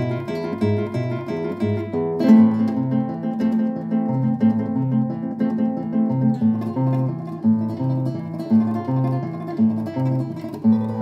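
Solo classical nylon-string guitar played fingerstyle: a repeating bass line under melody notes and chords, with a sharply accented chord a little over two seconds in.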